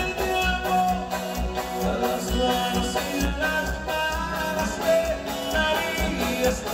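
Live grupera band playing a dance song: a steady bass-and-drum beat under sustained melody lines.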